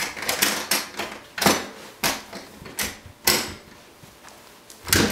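Sharp, irregular knocks and clatters at a wooden door, about eight of them unevenly spaced.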